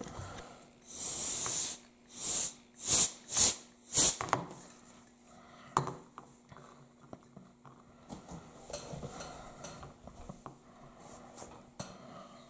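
Can of compressed air sprayed in short blasts: one longer hiss about a second in, then four quick puffs, blowing wet alcohol ink across plastic. Afterwards come a few faint clicks and knocks as the can and a bottle are handled.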